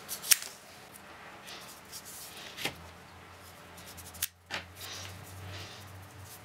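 Scissors snipping through strips of decorative design tape: a few short, sharp snips, the loudest right at the start, with lighter clicks of the cut pieces being handled, over a faint low hum.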